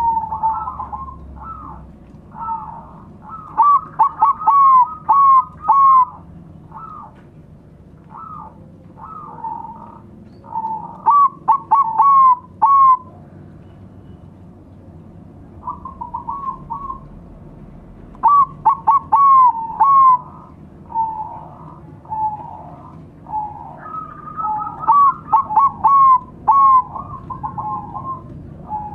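Several zebra doves (perkutut), Bangkok and local types, cooing together. Their phrases of quick, ringing notes come in groups every few seconds and often overlap.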